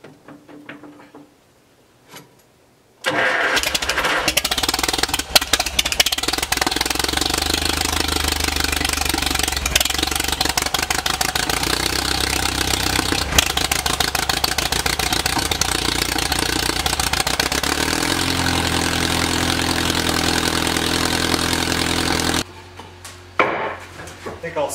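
Farmall tractor engine firing up cold after sitting unused for weeks in freezing weather, catching about three seconds in and then running steadily to warm up. Its note changes about eighteen seconds in, and the sound stops abruptly near the end.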